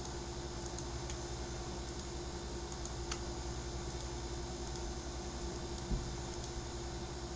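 Steady low hum and hiss with a faint constant tone, broken by a few faint clicks and one soft low thump about six seconds in.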